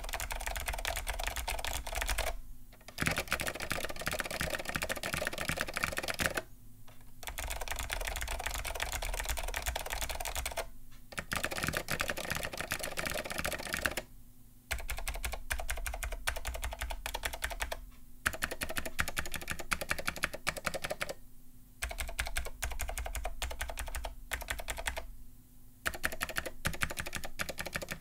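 Fast typing on two vintage Alps-switch keyboards in turn: a Leading Edge DC-2014 with blue Alps switches, and a custom Apple IIc keyboard with Amber Alps SKCM switches in a wooden case. Each run is a dense stream of sharp key clicks lasting a few seconds, with short pauses between runs. The Apple IIc board sounds fuller and bassier than the Leading Edge.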